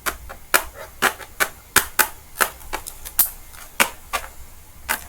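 Plastic bottom cover of an Acer Aspire 5 laptop being pressed back onto the chassis, its clips snapping into place in a run of about a dozen sharp clicks at uneven intervals.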